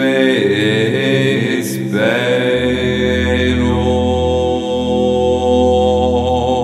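A man singing a slow melody of long held notes over layered, sustained vocal harmonies. A deep bass note comes in about two and a half seconds in.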